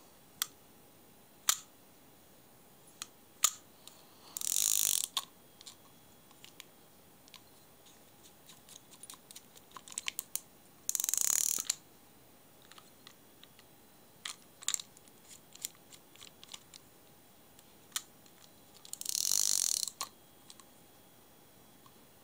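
A 1970s Daiwa Silver 1300C fixed-spool spinning reel worked by hand: three short bursts of fast mechanical whirring, about a second each, from its gearing and rotor. Between them come scattered sharp clicks and snaps from the mechanism.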